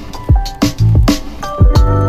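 Intro music: a beat with deep, punchy kick-drum thumps, sharp percussive ticks and held synth tones.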